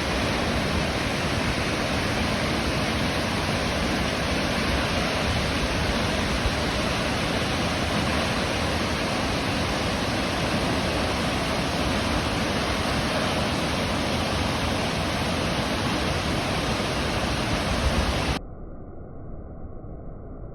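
Waterfall: a steady, loud rush of falling water that cuts suddenly near the end to a quieter, muffled rush.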